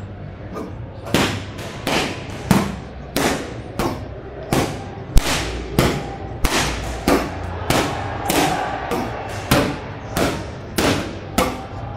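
Boxing gloves punching focus mitts: a steady run of sharp smacks, about twenty in all, often landing in quick twos and threes.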